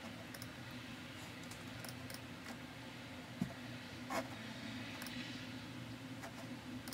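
Scattered faint clicks and taps of a computer keyboard and mouse over a steady low hum, with a couple of sharper clicks about halfway through.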